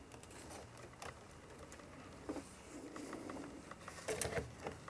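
Faint clicks and rustling as hands handle electrolytic capacitors and a hot glue gun on a metal amplifier chassis, with a short louder clatter about four seconds in.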